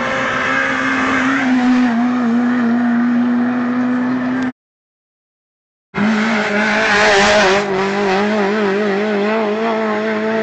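Race car engine held at high revs as the car climbs the road toward and past the listener. Its note wavers up and down in the second half. The sound cuts out completely for about a second and a half near the middle.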